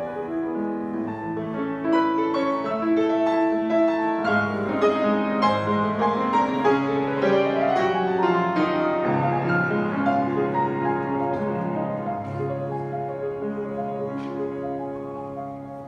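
Grand piano played solo, with a fast rising run of notes about halfway through, growing softer near the end.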